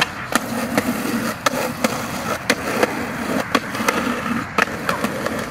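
A skateboard rolling on concrete, its wheels rumbling steadily, with a string of sharp clacks every half second or so from the board and wheels striking the ground.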